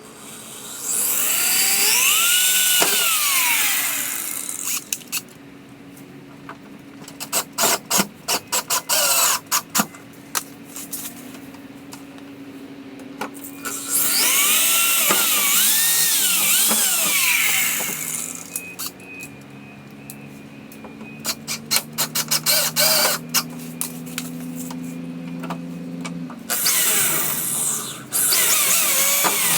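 A power drill boring holes into a car's rear wing, in three runs of a few seconds each, its pitch rising and falling as it bites. Between the first two runs comes a quick series of sharp clicks.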